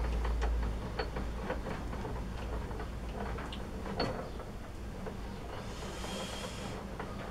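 Turnell & Odell lathe saddle being wound along the bed by hand: irregular light clicks and small metallic knocks over a low steady hum, with a short hiss about six seconds in.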